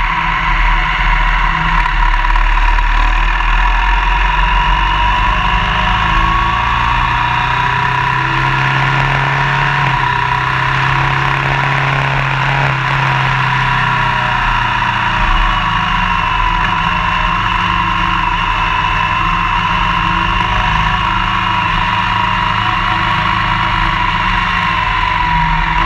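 Motorcycle ridden at road speed: the engine running under way with steady wind and road noise, the engine note shifting a little around the middle as the throttle changes.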